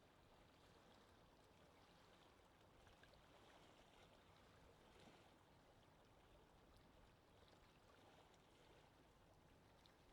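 Faint lake ambience: wind with water lapping softly, steady throughout, with a few small splashes or ticks in the middle.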